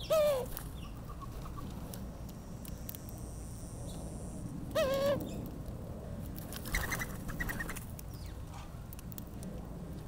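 Birds calling at a backyard seed feeder: a short call falling in pitch at the start, a similar short call about five seconds in, then a quick run of higher chirps about seven seconds in.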